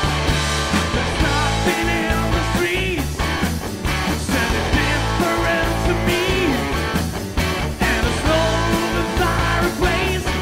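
Background rock music with guitar over a steady bass line.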